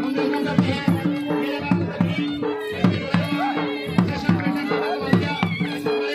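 Traditional folk music: a drum beating a steady rhythm under a melody line that holds long notes. Crowd voices are mixed in.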